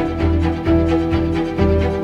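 Background music: bowed strings holding long notes over a low bass line that changes about every half second.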